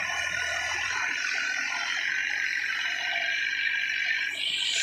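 Mini excavator's engine and hydraulics running steadily as the machine works its arm and loads debris, with a slight change in the sound about four seconds in.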